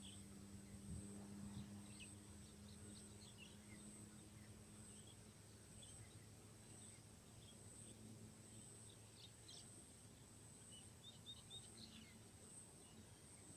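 Near silence: faint open-air ambience with scattered short bird chirps, a steady high-pitched insect drone, and a faint low hum that fades out around halfway.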